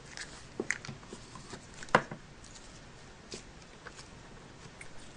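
Hands molding Play-Doh, with a scatter of small clicks and taps from handled toy pieces; the sharpest tap comes about two seconds in.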